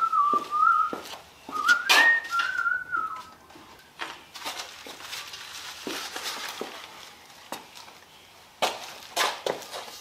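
A man whistling a short wavering tune in two phrases for the first three seconds or so, then footsteps and scattered light clicks and rustling as a plastic-wrapped part is handled.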